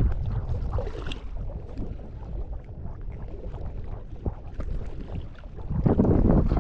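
Wind rumbling on the microphone. It dies down about a second in, leaving faint scattered clicks, then gusts back in loudly near the end.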